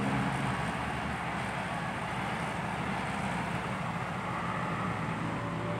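Heavy diesel engine running steadily, an even low hum with no clear revving or gear change.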